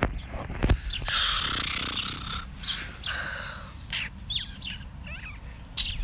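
Handling noise on a phone's microphone: a few knocks and a longer scratchy rustle of fabric rubbing against it about a second in. Short bird chirps come through about four seconds in, over low wind rumble.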